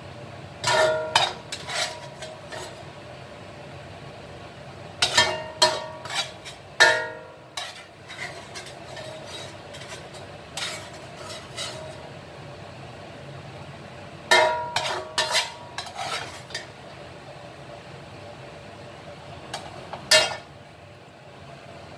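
Spatula scraping and knocking against a stainless steel wok in four short bursts, the metal ringing briefly after the knocks, over a steady low background hum.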